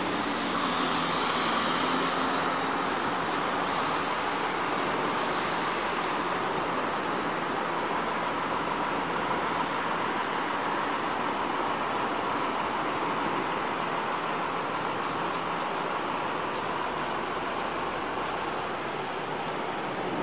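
Steady rushing noise of road traffic, an even hum that holds at the same level.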